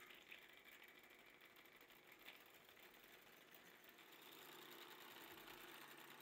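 Electric hand mixer running steadily, its wire beaters whisking whipping cream and sugar in a glass bowl; the motor gets slightly louder about four seconds in.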